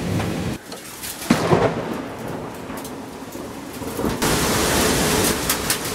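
Heavy rain in a thunderstorm, with a sharp thunder crack that rolls on about a second in. A little past four seconds the downpour suddenly grows louder and stays loud.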